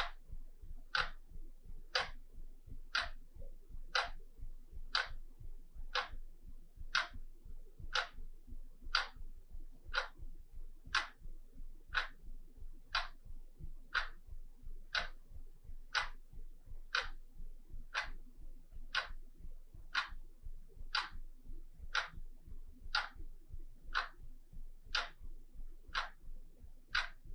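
Wall clock ticking steadily, one tick a second, each tick a crisp click.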